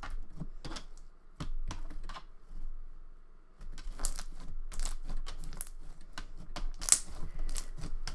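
Thick, glossy, overactivated slime being kneaded and squeezed by hand, giving off irregular sticky clicks and pops, with a short lull about three seconds in.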